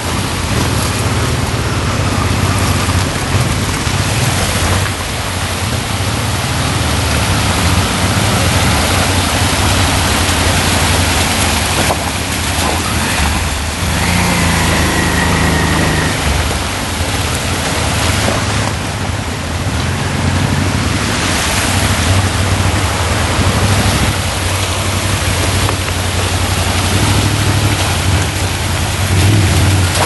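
Steady rush of a shallow stream running over rocks, with motorcycle engines running at low revs as the bikes ride through the water, a little louder near the end. A brief high whistling tone about halfway through.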